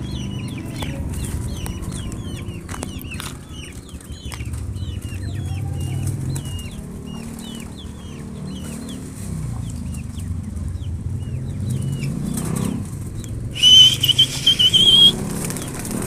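Chicks peeping in quick succession among clucking chickens, over a steady low rumble. Near the end a loud, high warbling whistle sounds for about a second and a half.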